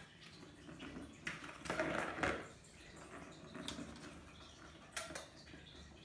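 Kittens pawing at a plastic ball in a circular track toy with a cardboard scratch pad: scattered faint clicks and scuffs, with a louder stretch of scuffling about two seconds in.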